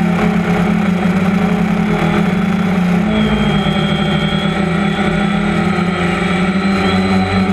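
DJI Phantom 1 quadcopter's four brushless motors and propellers buzzing steadily, heard up close from the GoPro mounted on the airframe, with small shifts in pitch as the drone turns in flight.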